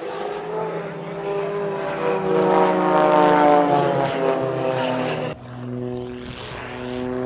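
Propeller-driven aerobatic plane's piston engine flying past, its note sliding lower as it goes by. About five seconds in the sound cuts off suddenly and a steadier engine drone follows.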